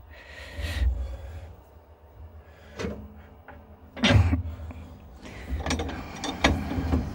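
Cast-iron bench vise being tightened on a small copper terminal blank: scattered metal clicks and knocks, the loudest about four seconds in and a cluster near the end.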